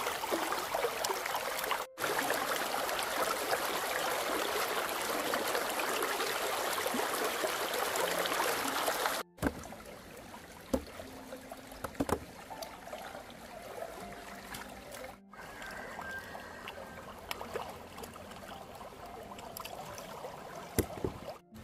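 Shallow stream water running and splashing around hands washing freshly dug sweet potatoes in it. It is a loud, steady rush for about the first nine seconds, then quieter trickling with scattered small splashes.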